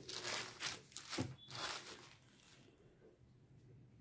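Rustling and crinkling of a folded saree being handled on a flat surface: several short scuffs in the first two seconds, fading to quiet room tone.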